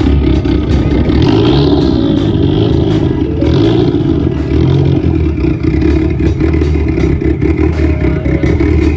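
Car engine running loudly and steadily, close by.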